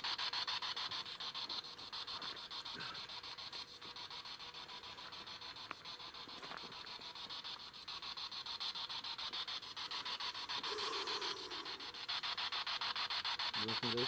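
Spirit box radio sweeping rapidly through stations: choppy, rasping static that pulses many times a second.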